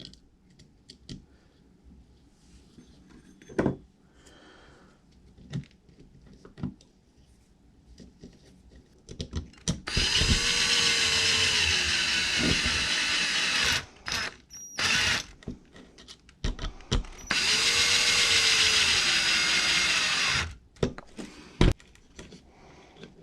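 Power driver spinning in a socket head cap screw on an RC truck's steering rack, in two runs of about three seconds each with short blips between them; the motor's pitch drops near the end of each run. Light clicks of small parts being handled come first.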